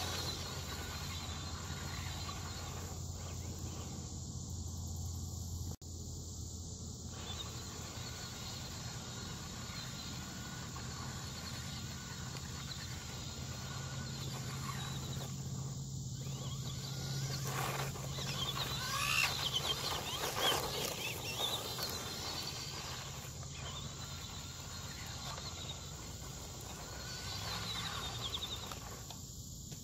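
Latrax Prerunner RC truck's small electric motor whining, rising and falling in pitch as the truck speeds up and slows on dirt, loudest about two-thirds of the way through, over a steady low hum.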